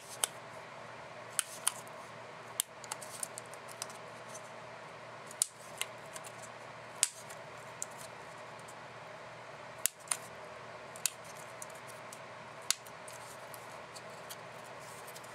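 Handheld plier-type single hole punch snapping shut again and again as a row of holes is punched: sharp metal clicks, unevenly spaced about a second apart, over a faint steady hum.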